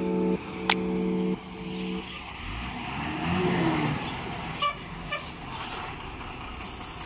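Steady held tones in short blocks for the first two seconds. Then a dump truck's diesel engine passes close, its note rising and falling, with a couple of clicks.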